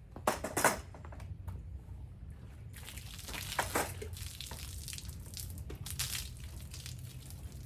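Water spraying and splashing on a truck's body during a wash: a couple of brief loud scrubbing or splashing bursts near the start, then a steady hiss of running water from about three seconds in.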